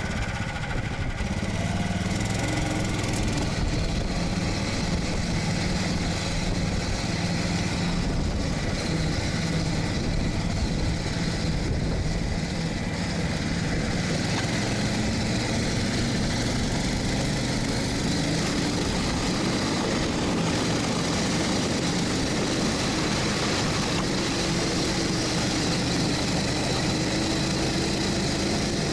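Sharmax S500 motorized ski-tow engine running steadily under load as it hauls a loaded sled across snow and ice.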